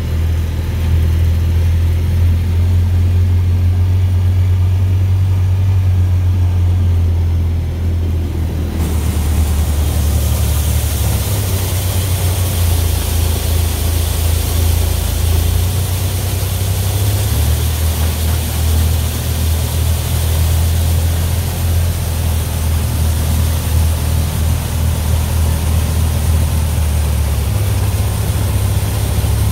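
Tractor engine running steadily at work, driving a 1960s New Idea two-row corn picker with sheller, its low drone shifting slightly in pitch now and then. About nine seconds in, a higher hiss of machinery joins in and stays.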